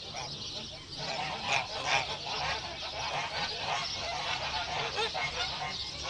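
A flock of domestic geese honking, many overlapping calls, busiest and loudest about one and a half to two seconds in.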